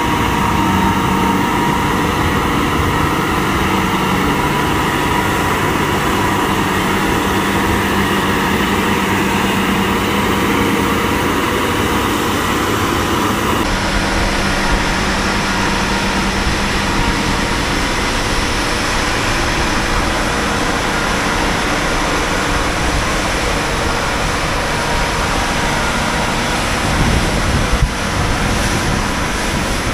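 Heavy diesel trucks' engines running steadily under load. About fourteen seconds in the sound changes abruptly to a noisier rumble, with wind buffeting the microphone near the end.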